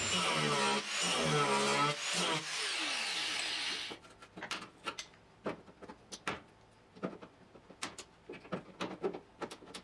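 Power grinder running against steel car body panel, grinding out spot welds, its pitch wavering as it loads up. It cuts off about four seconds in, followed by scattered light clicks and taps of metal being handled.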